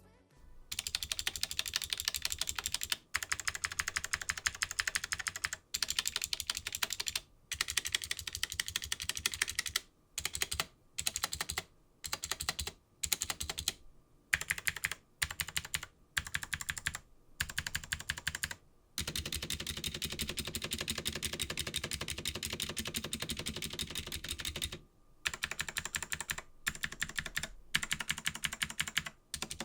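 HyperX Alloy Origins keyboard with clicky blue switches and pudding keycaps, its stabilized large keys pressed rapidly over and over. The presses come in runs of one to several seconds with short pauses between.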